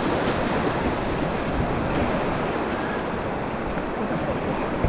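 Steady rush of whitewater in a rocky mountain stream.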